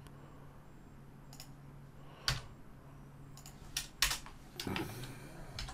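Computer keyboard keys and mouse buttons clicking: several separate clicks, the loudest about two and four seconds in, over a faint steady low hum.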